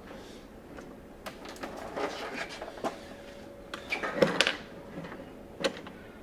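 Scattered clicks, knocks and rustling of objects being handled on a tabletop, with the sharpest knock a little after four seconds in.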